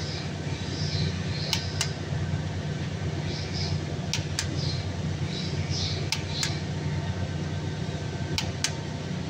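Click-type torque wrench clicking four times on connecting rod cap bolts, each a sharp double click about a quarter second apart as the wrench breaks over at its set 100 ft-lb. A steady low hum runs underneath.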